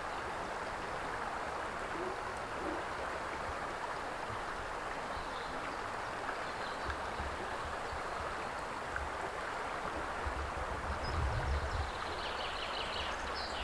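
Flowing river water running steadily over stones, an even rushing noise. Some low rumbling comes in near the end.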